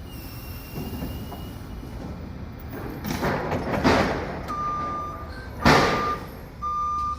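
Forklift engine running low, with two loud harsh noise bursts about three to four seconds in and near six seconds. From about four and a half seconds in its reversing alarm sounds a steady, evenly repeated high beep.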